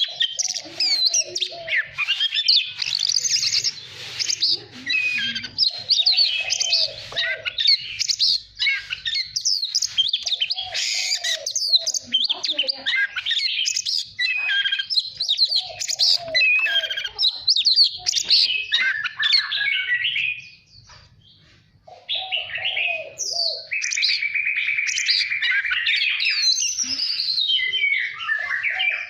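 Oriental magpie-robin singing a long, varied song of rapid whistles and chirps, with lower warbled phrases mixed in. The song breaks off briefly about two-thirds of the way through, then resumes with a fast buzzy trill.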